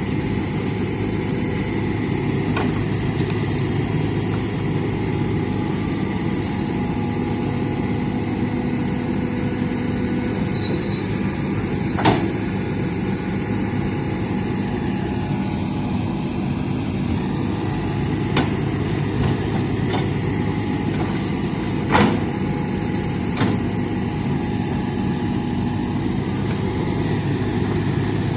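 Hitachi excavator's diesel engine running steadily, with a handful of sharp knocks breaking through. The loudest knocks come a little before halfway and again about three-quarters of the way in.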